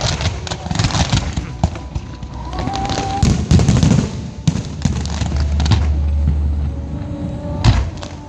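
Aerial fireworks going off in a rapid, dense run of sharp crackling bangs mixed with deeper booms.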